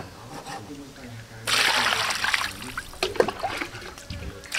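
Water poured from a metal pot into a plastic basin of raw chicken wings, splashing for about a second and a half starting about a second and a half in, then splashing again at the very end.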